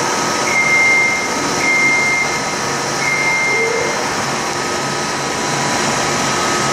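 Steady mechanical whir with four short, high, flat squeals over it.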